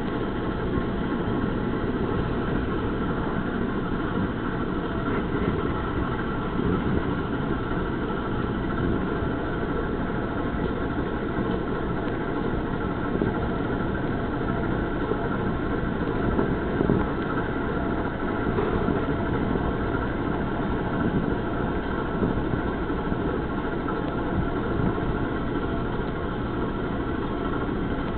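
Kitten purring steadily and loudly close to the microphone, a continuous rapid low rumble, as is usual while a cat kneads.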